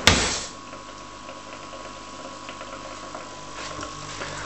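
A steady hum with a low, pulsing buzz, as from a small aquarium air pump aerating a deep-water-culture bubble bucket. A single sharp knock right at the start is the loudest sound.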